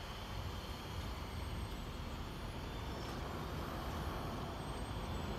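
Steady low rumble of outdoor background noise, like distant traffic, with no distinct events.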